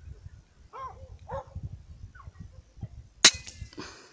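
A few short, high, downward-gliding animal calls, then about three seconds in a single sharp crack of a PCP air rifle shot.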